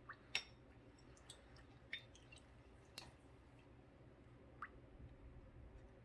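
Spoon stirring a liquid marinade in a bowl, giving a handful of light clicks and taps against the bowl, the sharpest about a third of a second in, over a quiet background.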